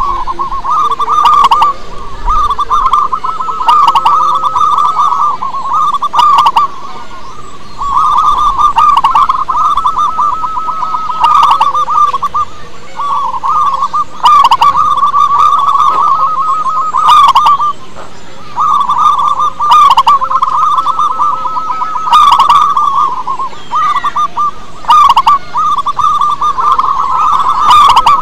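Zebra dove (perkutut) with a big voice, singing: repeated phrases of rapid, pulsing coos, each a few seconds long, with short pauses between them.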